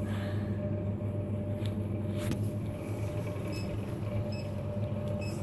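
Steady low machine hum of a shop's background equipment, with a thin steady high tone over it.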